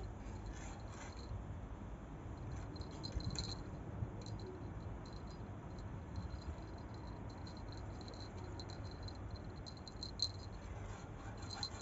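Domestic cat purring: a soft, steady low rumble, with a few faint clicks.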